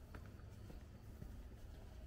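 Faint footsteps at a walking pace, soft taps about every half second over a low rumble.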